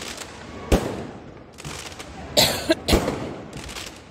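Fireworks overhead: aerial shells bursting with two sharp bangs about two seconds apart, each fading away afterwards, and a brief hissing crackle just before the second bang.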